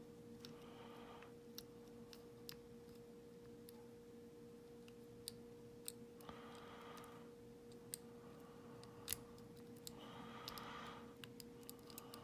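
Faint, scattered small clicks and scrapes of a lock pick working the pins inside a US Fort padlock's keyway, over a steady faint hum.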